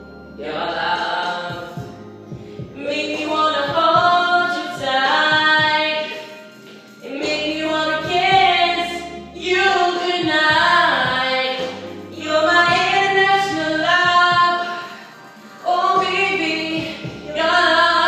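Solo voice singing into a handheld microphone, in sung phrases of a couple of seconds each with short breaths between them.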